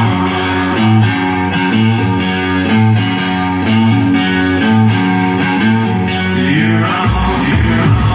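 Music played loud through a Philips MAX Sound FWP2000 mini hi-fi system: a song with a steady beat, a bass line pulsing under a moving melody. About seven seconds in, a much deeper bass and bright cymbals come in.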